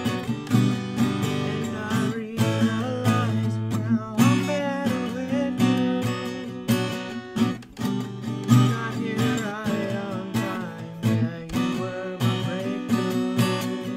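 Acoustic guitar strummed in a steady rhythm, playing the chords of a pop song without singing.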